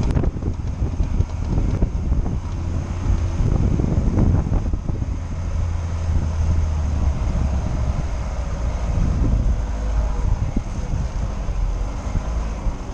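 Lada Niva driving off-road, heard from inside the cabin: a steady low engine drone with scattered knocks and rattles from the body over rough ground, bunched around four seconds in. The engine note drops a little past halfway.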